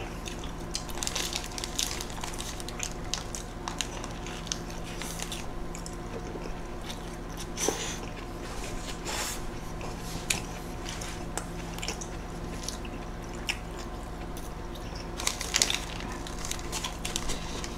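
Close-miked chewing and biting of burgers: scattered soft, wet mouth clicks and smacks over a faint steady hum, busier near the end.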